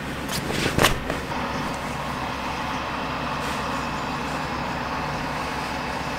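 Farm tractor engine running steadily, a low continuous drone. A quilted blanket rustles briefly in the first second.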